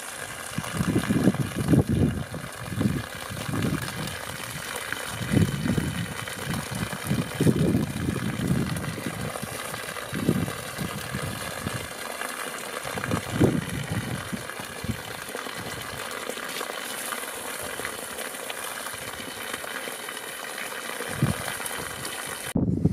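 Suzuki outboard motor starting and then running steadily on the trailer, fed by a garden hose, while its cooling-water stream splashes.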